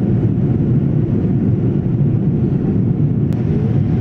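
Airliner cabin noise in flight, a steady low rumble.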